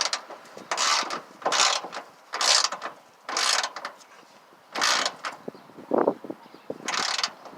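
Icon G2 80-tooth 3/8-inch-drive ratchet being swung back and forth on a loosened bolt, its pawl giving a fine, fast buzzing click on each return stroke, about once a second. A few duller metal knocks come about three-quarters of the way through.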